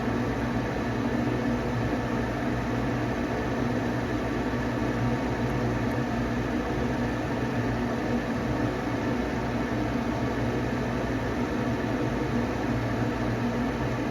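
Gas furnace's draft inducer motor running with a steady hum during the ignition sequence, before the burners light.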